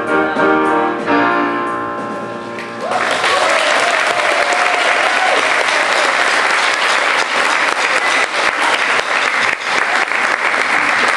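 A choir with piano ends a song on a held final chord. About three seconds in, loud audience applause and cheering breaks out.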